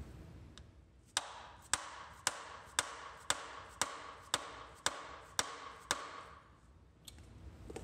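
Sharp metallic knocks, ten in a row at about two a second and a last one near the end, as a gearbox shaft is driven repeatedly into the rear of a Jaguar E-type crankshaft to force out the pilot bushing, which is not budging.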